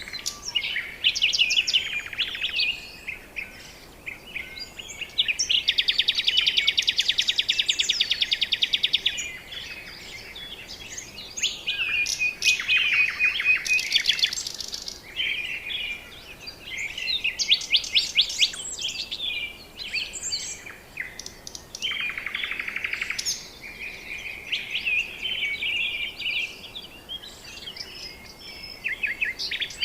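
Several birds calling: bursts of rapid trills and chattering chirps, one dense trill lasting several seconds about five seconds in.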